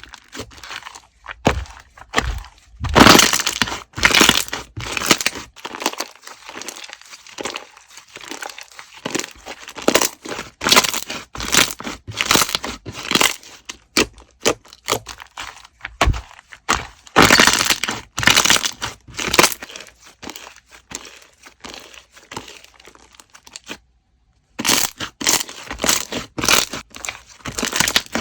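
Slime being squeezed and worked by hand, giving a dense run of crackling, crunching clicks, with a short break about three-quarters of the way through.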